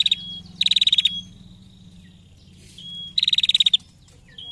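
Female prenjak giving its rapid 'ngetir' trill: three short bursts of fast, high, repeated notes, about half a second each, near the start, about a second in and about three seconds in, some followed by a brief thin whistle.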